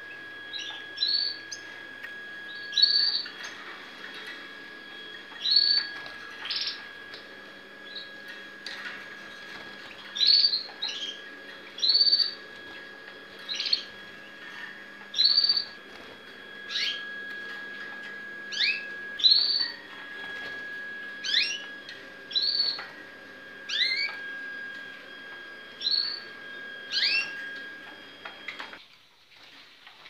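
Domestic canaries giving short, rising chirp calls, one every second or two, rather than full song. A faint steady high tone sits underneath and cuts off near the end.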